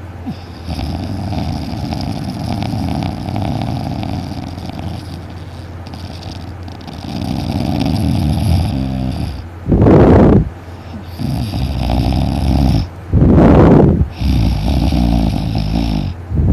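Very loud, intense snoring from a deep sleeper, in long drawn breaths. About two-thirds of the way through come two short, much louder snores a few seconds apart.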